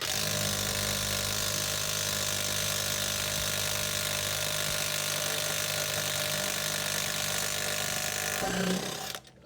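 Power wrench running steadily on the wheel's lug nuts to loosen them, for about nine seconds, then stopping near the end.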